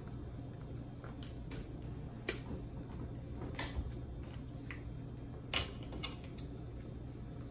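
Cooked snow crab leg shells cracking and snapping as they are broken apart by hand: a scattering of short, sharp cracks.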